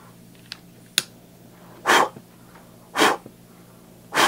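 Two small clicks, then three short, loud puffs of air about a second apart, like breath blown in steady strokes.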